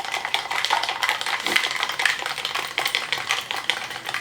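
A utensil stirring chicken-fry batter mix and ice water in a bowl: quick, irregular clicking and scraping against the bowl.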